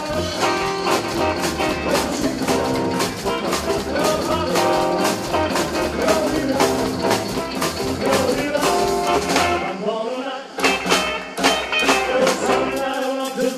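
Live rockabilly band playing: upright double bass, acoustic guitar and hollow-body electric guitar, with a steady beat of sharp strokes over a pulsing bass line. The bass drops out briefly about ten and a half seconds in, then comes back.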